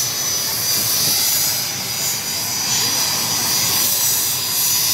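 Military jet engine running on the ground, a loud steady rush with a high whine over it.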